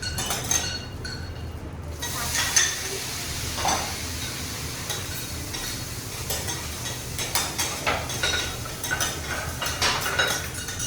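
Fried rice sizzling on a teppanyaki griddle, with metal spatulas scraping and clicking against the hot plate as it is stirred. The sizzle grows louder about two seconds in.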